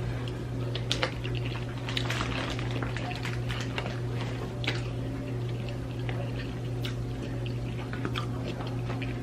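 Wet eating sounds of a shrimp seafood boil: irregular mouth smacks, clicks and slurps of chewing and sucking the buttery sauce off shrimp.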